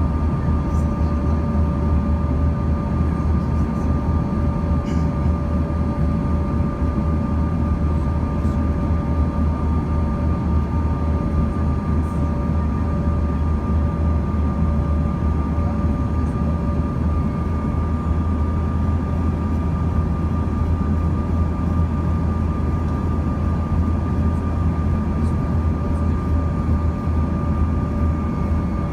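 Cabin noise inside a Bombardier CRJ-200 regional jet in flight: a steady low rumble of airflow and the rear-mounted GE CF34 turbofans, with a few steady whining tones over it and no change in power.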